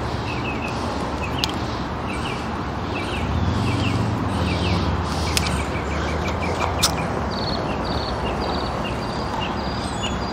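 Small birds chirping over and over in short, high notes, with a run of quick falling notes near the end. A low rumble swells and fades a few seconds in, and there are a few sharp clicks.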